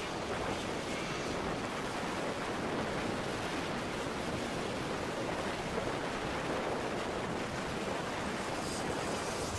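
Steady, even wash of trackside noise: racing kart engines in the distance blurred together, with wind on the microphone.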